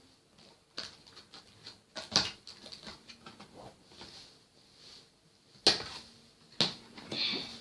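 Rustling and handling of a toy blaster's plastic parts and packaging, with several sharp clicks or snaps, the loudest about two seconds in and twice near the end.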